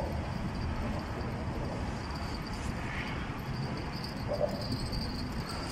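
Steady outdoor background noise: a low rumble with a thin, steady high-pitched whine above it.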